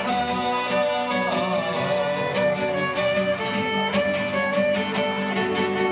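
Fiddle playing a melody over strummed acoustic guitar, an instrumental passage with no singing.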